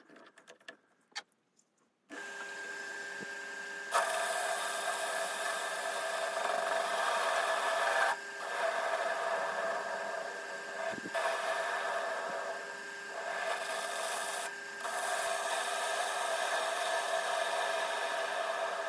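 A small TV-16 lathe's motor starts about two seconds in and runs steadily. From about four seconds a cutter rasps steadily through the workpiece, briefly easing off three times.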